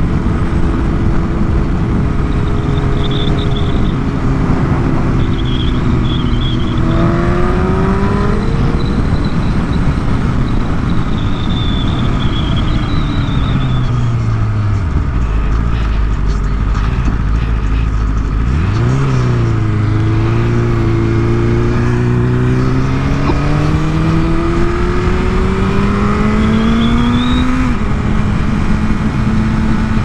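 BMW S1000RR's inline-four engine under way, its pitch rising under acceleration, then falling away as it slows about halfway through. It climbs again and drops at a gear change near the end, with a steady wind rush on the helmet microphone.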